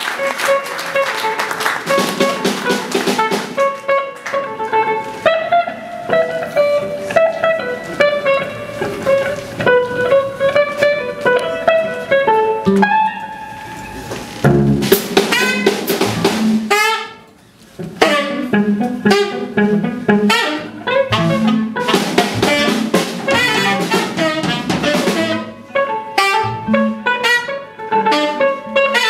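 Free-jazz quartet playing live: saxophone, electric guitar, electric bass and drum kit, with a line of single pitched notes over busy drumming. The band drops out for a moment about seventeen seconds in, then comes back in together.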